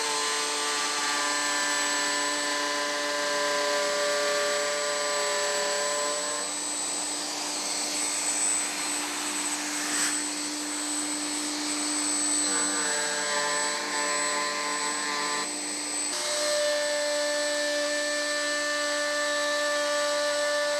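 Triton plunge router running steadily as it routs a T-track slot into a plywood sled base, with a dust extractor drawing through its hose. The whine shifts in pitch a few times.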